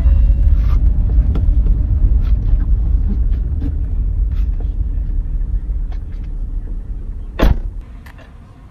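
Low, steady rumble of a car, heard from inside the cabin, slowly fading. A single sharp bang comes near the end.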